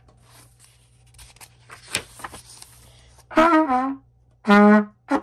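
A book page rustles and turns with a few soft clicks, then a trumpet blasts two deliberately unmusical notes, the second lower than the first, and gives a short third burst near the end.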